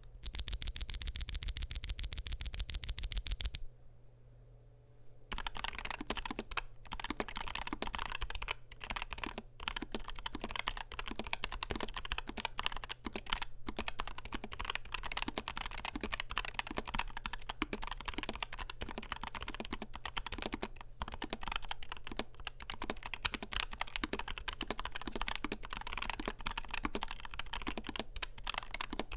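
Typing on a NuPhy Air60 V2 low-profile mechanical keyboard with Gateron Low-profile 2.0 Red linear switches, an aluminium plate and PBT low-profile keycaps: a steady stream of quick, irregular key clicks that begins about five seconds in. Before that there is a loud, very even, rapid run of clicks lasting about three and a half seconds.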